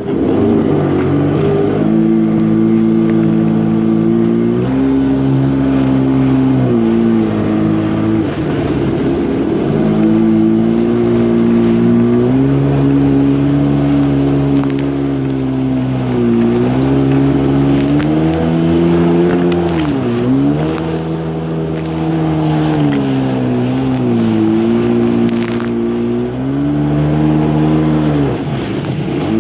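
Yamaha WaveRunner jet ski engine running at speed. Its pitch holds steady, then dips and climbs back again several times.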